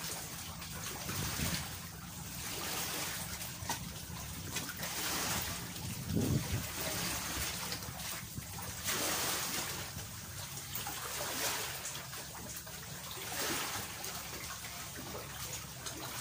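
Seawater lapping and splashing against porous coral rock, coming in irregular surges every second or two.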